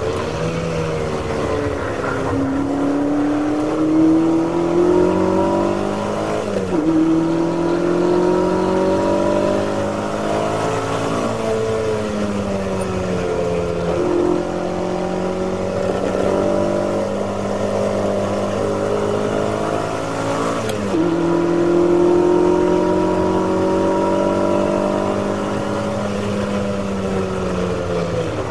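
Classic Ferrari V8 race car engine heard from inside the car, pulling hard with its pitch climbing. It drops sharply at two upshifts, about a quarter of the way in and again about three-quarters in, and falls for a few seconds near the middle as the driver lifts off.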